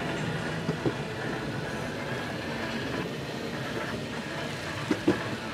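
Electric skateboards rolling on pavement: a steady rumble of wheels with a few sharp clicks, one about a second in and two close together near the end.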